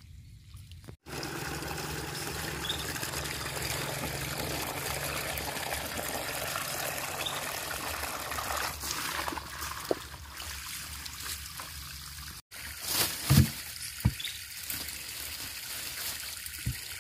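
Water from a hose pouring in a steady stream into a plastic bucket that is partly full of water, thinning towards the end. After a cut, a few short knocks and rustling of a plastic bag being handled.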